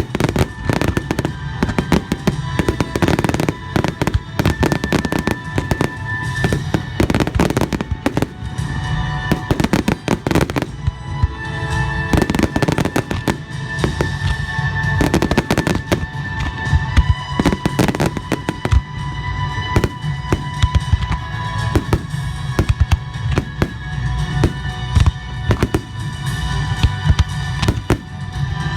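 Aerial fireworks bursting in a dense, rapid barrage of sharp bangs and crackles, over loud music with a heavy bass.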